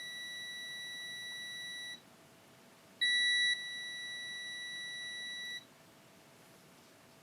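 Digital multimeter's continuity beeper sounding a steady high tone, stopping about two seconds in, then sounding again a second later, louder for its first half second, and stopping again near the end. The probes are across a shorted MOSFET, so the meter beeps continuously.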